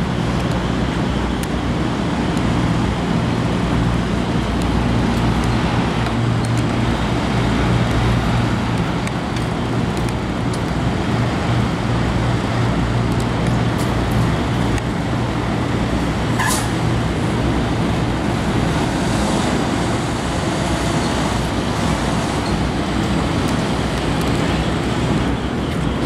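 Steady drone of machinery with a constant low hum, unbroken throughout, and one brief click about sixteen seconds in.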